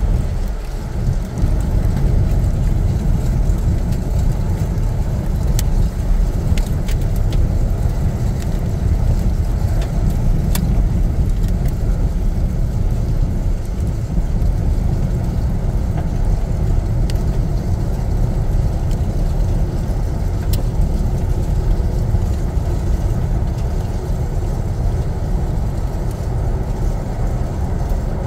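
Steady, loud low rumble of vehicle engine and road noise, picked up by a dash camera microphone, with a few faint sharp clicks scattered through it.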